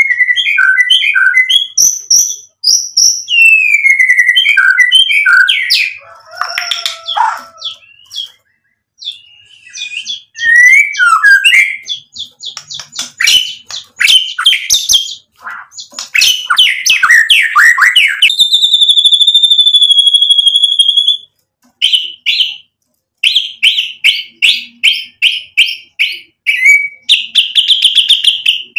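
Caged male white-rumped shama (murai batu) in full song, pouring out its repertoire of mimicked phrases (isian): a rapid, ever-changing run of whistles, warbles and trills. About 18 seconds in there is a long steady whistle, and rapid repeated notes follow near the end.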